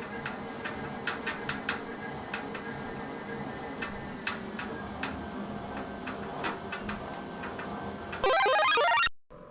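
Wahoo KICKR Bike smart bike running with a steady hum and repeated, irregularly spaced sharp ticks, the ticking noise that greasing and tightening were meant to cure. Near the end comes a brief, loud electronic sweep of rising tones.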